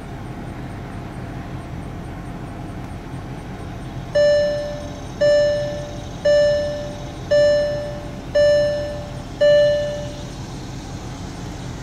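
A VW Touareg's dashboard warning chime sounds six times, about once a second, each tone fading away. It plays over a steady low hum in the car's cabin.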